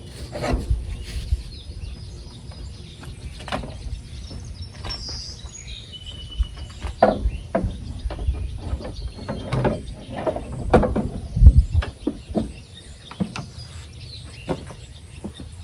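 Scattered knocks and clatter over a low rumble, with a few short bird chirps in the first half.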